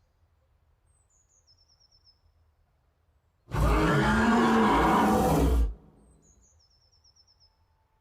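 A bear's roar from a sound-effects library, one loud growling roar of about two seconds starting about three and a half seconds in. Faint bird calls come before and after it.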